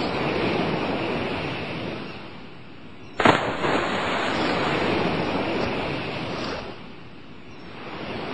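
Sea waves washing in slow surges that swell and fade every few seconds, with a single sudden loud crash about three seconds in.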